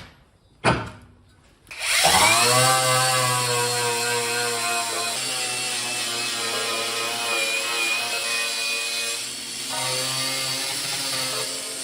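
A power tool starts about two seconds in after a click and runs steadily with a high whine, its pitch dropping slightly as it settles.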